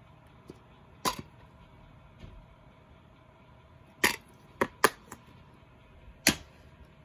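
Plastic DVD case being handled: a sharp click about a second in, a quick run of four clicks as the case snaps open about four seconds in, and one more snap near the end. A faint steady hum lies underneath.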